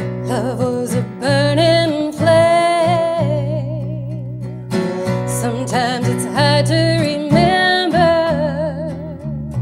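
Live acoustic country music: strummed acoustic guitar and bass under a sliding, wavering melody from a steel guitar played on the lap.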